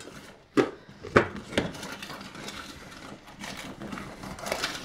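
Items being set down and arranged on a metal non-stick baking tray on a wooden worktop: three sharp knocks in the first two seconds, then quieter handling and rustling.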